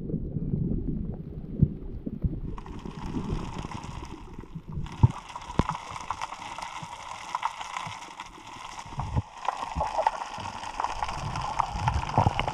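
Underwater sound through an action camera: a low rumble of moving water with scattered clicks, then from a few seconds in a dense crackle of fine clicks over a steady hiss.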